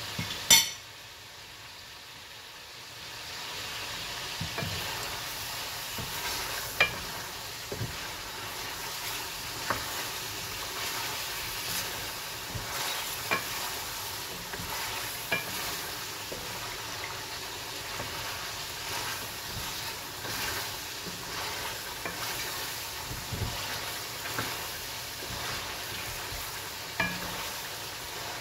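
Chicken pieces sizzling as they fry in oil in an aluminium karahi, stirred with a wooden spoon that knocks and scrapes against the pan now and then. A single sharp knock about half a second in is the loudest sound. The sizzle is softer for the first few seconds, then holds steady.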